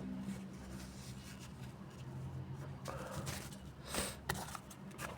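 Faint sniffles and breathy noises from a congested nose, a few short ones from about three seconds in, over a steady low hum.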